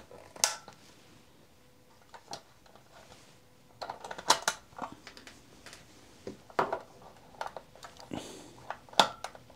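Side cutters snipping a nylon cable tie with one sharp click about half a second in, followed by scattered clicks and rustles of hands pulling plastic-insulated mains wires and a heat-shrink-wrapped capacitor loose.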